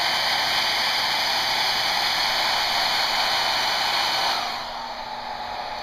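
Handheld hairdryer blowing with a steady rush of air, dropping to a quieter level about four and a half seconds in.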